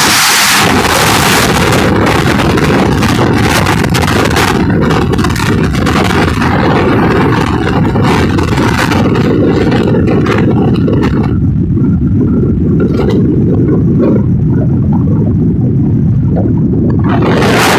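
Loud wind rush and rumble on the microphone with road and engine noise from a moving vehicle. The hissing top of the wind noise drops away about two-thirds of the way through, leaving the low rumble, and comes back near the end.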